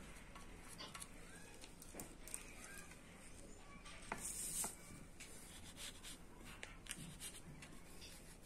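Faint scraping and rubbing of a paint-loaded card dragged across paper, with a few light taps. There is a brief louder scrape about four seconds in.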